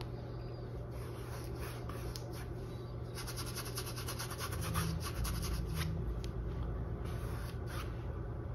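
Paintbrush scrubbing acrylic paint onto a canvas in quick, scratchy strokes, densest from about three to six seconds in, over a steady low hum.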